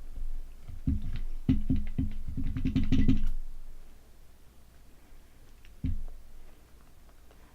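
Close-miked mouth sounds of snacking: a quick run of low clicks and knocks for about three seconds, then a single one near the end.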